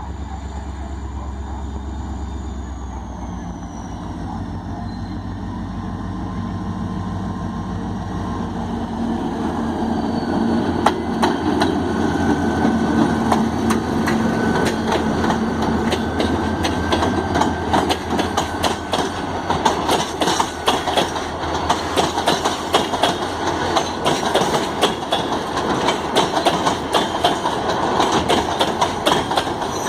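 An EMD SD40T-2 diesel-electric locomotive with a 16-cylinder two-stroke engine runs past, its high tone slowly falling. From about ten seconds in come the ballast train's wheels, a rapid, continuous clatter over the rail joints that grows louder as the cars roll by.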